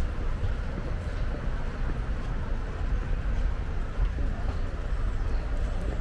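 City boulevard street ambience: steady road traffic noise with a low rumble.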